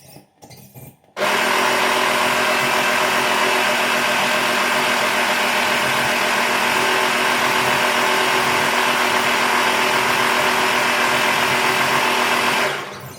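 Small electric air compressor running steadily, building air pressure for an air-horn kit. It starts abruptly about a second in and runs down just before the end.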